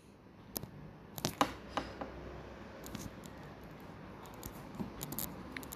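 Quiet room tone with faint, scattered short clicks and small taps.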